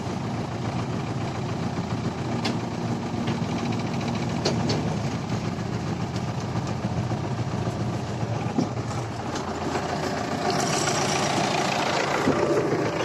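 MTZ-82.1 tractor's four-cylinder diesel engine idling steadily, with a few sharp clicks and a louder scraping rustle near the end.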